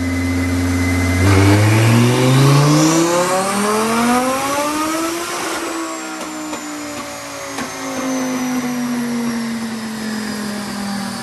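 Twin-turbo Audi R8 V10 on a chassis dyno: the engine holds steady, then about a second in the revs climb steadily for about four seconds under full load, with a faint high whistle rising alongside. It then comes off the throttle and the revs fall away slowly as the dyno coasts down.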